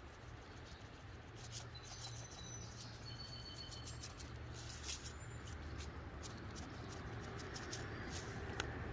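Coarse seasoning shaken from a shaker onto a trout, the granules making quick, light, irregular ticks. A few short bird chirps come about two to three seconds in, over a low steady rumble.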